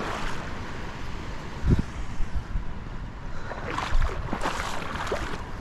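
Wind buffeting the microphone over water lapping, with a dull thump a little under two seconds in.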